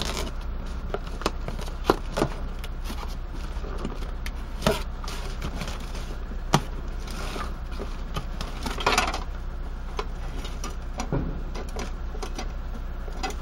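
A cardboard parcel being opened by hand: a knife cuts through the packing tape, and the flaps are knocked and pulled open, giving scattered taps and clicks. A longer scraping rustle comes about nine seconds in. Under it all runs a steady low hum.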